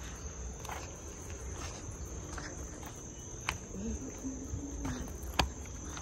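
Insects chirring in a steady, high-pitched drone, with a couple of sharp clicks about three and a half and five and a half seconds in.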